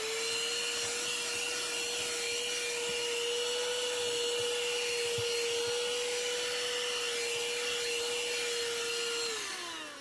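Ryobi ONE+ P713 18 V cordless handheld vacuum running steadily at full speed with a high, even whine while vacuuming a car's floor carpet. About nine seconds in it is switched off and the motor winds down with a falling whine.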